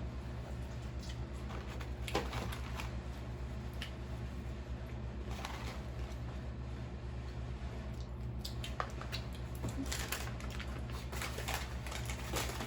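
Chewing and crunching while eating crispy fried chicken, heard as scattered soft crackles and wet clicks that come thicker near the end, over a steady low hum.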